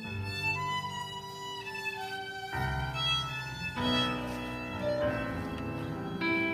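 Violin playing a melody of held and moving notes over lower sustained accompaniment, with a fuller, louder low part joining about two and a half seconds in.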